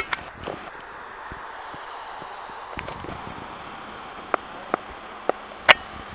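Steady distant jet noise from the Snowbirds' formation with a fighter jet flying past, heard as an even rushing roar. Several sharp clicks are scattered through it.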